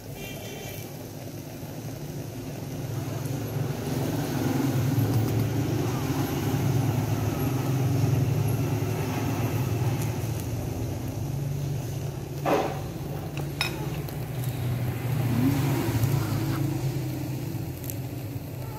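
A steady low engine drone that swells over the first few seconds and then holds, with two sharp clinks of utensils about twelve and thirteen and a half seconds in.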